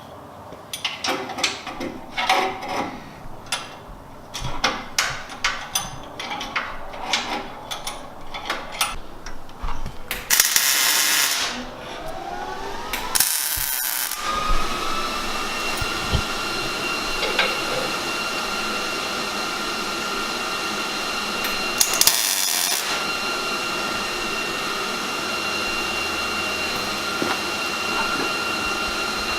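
Metal shop work on a truck frame: a series of sharp taps and scrapes, a few short bursts of hiss, then a power tool's motor spins up and runs on with a steady high whine.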